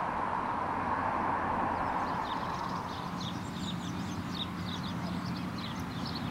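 Outdoor ambience: a steady rushing background noise, with short high bird chirps repeating from about two seconds in.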